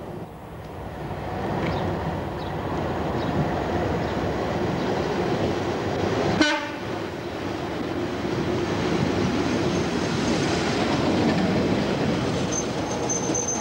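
Suburban electric multiple-unit train running into a station platform, a steady rumble of wheels on rails building over the first couple of seconds. There is a sharp click about six seconds in, and a high, thin steady squeal of brakes starts near the end as the train slows alongside the platform.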